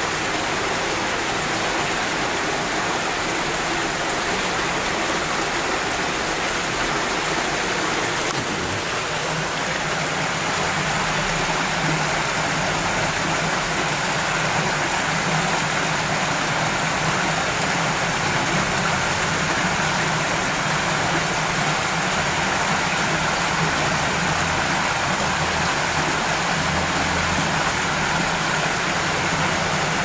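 Water cascading down a man-made natural-rock waterfall and splashing into a swimming pool: a steady, unbroken rush of falling water.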